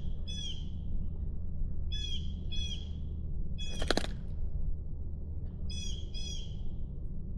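A bird calling in pairs of short, harsh notes, one pair about every two seconds, over a steady low rumble. A single sharp click about four seconds in.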